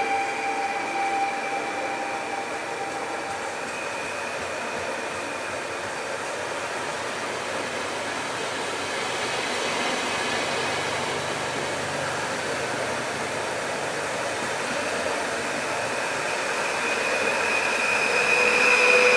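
PKP Intercity ED160 Stadler Flirt electric multiple unit running past along the platform, with a steady rush of wheels on rail. Whining tones fade about three to four seconds in, then come back louder near the end as the last car goes by.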